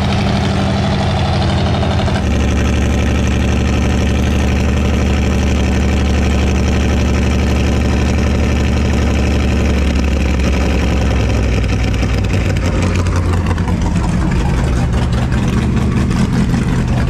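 Big-block V8 of a rollback tow truck running at low speed, heard from inside the cab: a steady low engine note that shifts slightly a couple of times.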